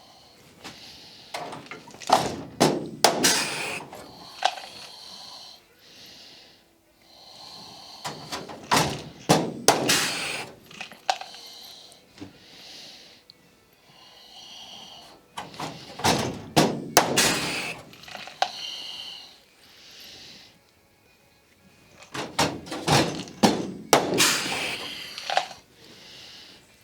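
Sheet-metal work on an aluminium wing tip skin: four bursts of knocking and rattling, about six to seven seconds apart.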